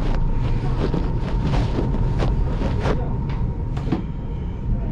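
Steady low rumble inside a high-speed train carriage, with a faint steady hum, overlaid by irregular rustling and scraping from a cloth towel handled right against the microphone.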